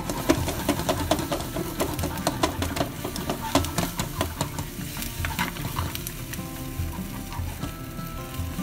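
Chopsticks rapidly stirring and scrambling beaten egg and pea sprouts in a hot frying pan: quick clicks and taps against the pan over the sizzle of frying egg. The clicking is busiest in the first half and eases off later.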